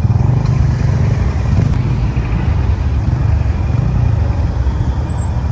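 Motorcycle riding at steady speed, heard from on the bike: a continuous low engine rumble mixed with wind rushing over the microphone.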